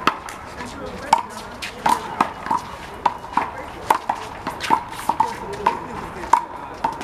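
A hollow rubber handball (the big blue ball) being played in a one-wall handball rally: a quick, irregular run of sharp slaps from hands striking it and from bounces off the wall and pavement, each with a short ringing ping.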